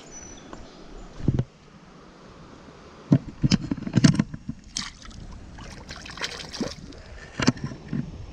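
Water splashing as a chain pickerel is lowered by hand into shallow creek water and released. A dull knock comes about a second in, then a run of sharp splashes about three seconds in and a few more near the end.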